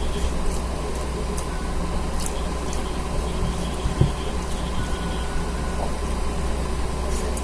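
Steady low mechanical hum with a thin steady tone above it. A few faint clicks and a short knock come about four seconds in.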